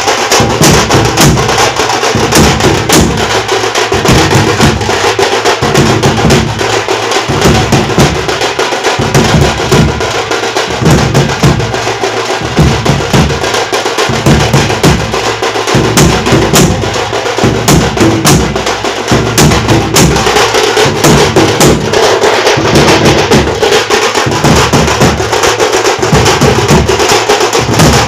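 Live drumming: a large double-headed bass drum struck with a curved stick, with dense, sharp higher drum strokes over it, playing loud, continuous dance rhythms.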